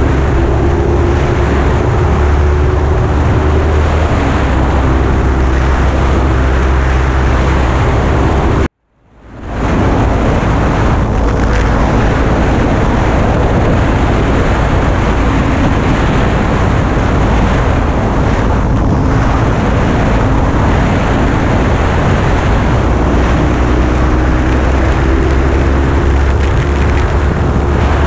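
Kawasaki Ninja 300's parallel-twin engine running at road speed under heavy wind and road noise on a helmet-mounted microphone. The engine note climbs near the end. The sound cuts out for under a second about a third of the way in and fades back in.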